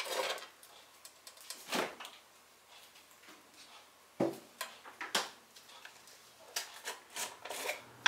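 A non-stick pot knocking on an electric coil burner as it is shifted by its handle, followed by scattered sharp clicks and light taps, a cluster of them near the end.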